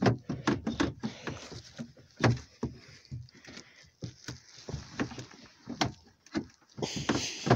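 Irregular knocks, clunks and clicks of hands working at a car's rear door that is frozen shut. A steady hiss comes in near the end.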